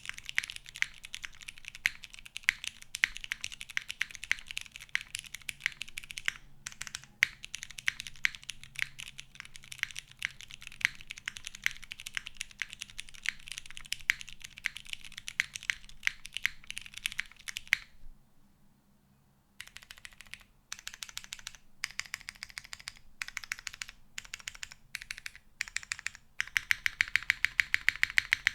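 Typing on a mechanical keyboard with lubed vintage Cherry MX Clear tactile switches on an FR4 plate with GMK keycaps: a fast, dense run of key clacks. About two-thirds through it stops briefly, resumes as slower separate keystrokes, then turns to fast typing again near the end.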